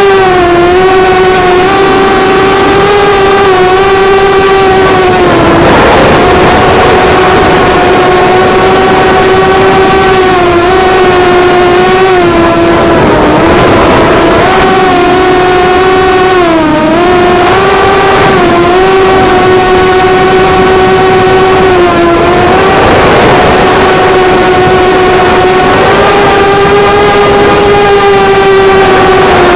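The QAV250 quadcopter's four Cobra 2204 2300kv brushless motors spinning 5045 bullnose propellers, recorded on board. They give a loud, steady whine whose pitch dips briefly several times as the throttle eases.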